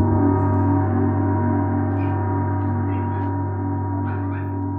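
A sustained gong-like ringing tone holding several steady pitches at once, fading slowly.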